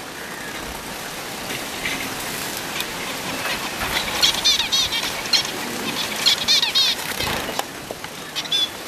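Pet finches chirping in two quick runs of high, repeated notes, over a steady splashing of water as they bathe.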